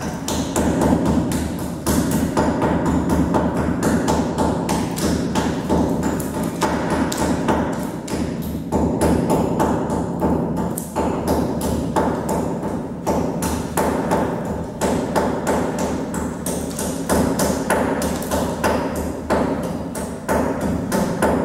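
Hammer driving a chisel into a plastered wall to cut recesses for electrical outlet and switch boxes: a steady run of sharp blows, about three or four a second, with no real pauses.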